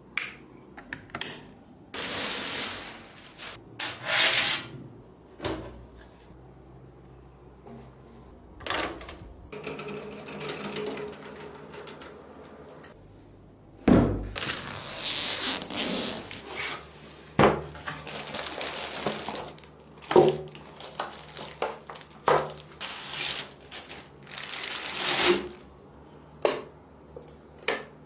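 Computer parts being handled during a PC build: irregular clicks and knocks, with a few longer stretches of rustling and sliding noise.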